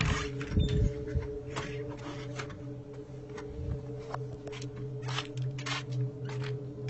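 Rustling, scraping and clicking handling noise from a hand-held phone camera being carried, with a cluster of low knocks in the first second, over a steady low hum.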